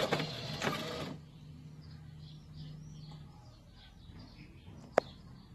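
3D-printed robotic lawn mower running as it settles into its charging dock, cutting off suddenly about a second in as it powers down. Birds chirp faintly afterwards, and a single sharp click sounds near the end.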